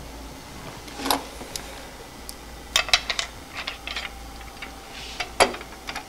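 Scattered light clicks and clinks of a metal turning tool being handled at a bench grinder: a knock about a second in, a cluster of clicks around three to four seconds, and one sharper knock near the end.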